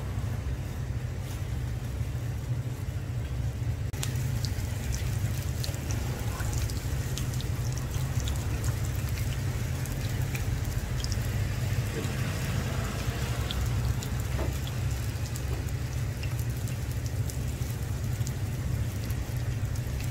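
Glutinous rice honey hotteok sizzling in shallow oil on a flat griddle. Scattered pops and crackles start about four seconds in, over a steady low rumble.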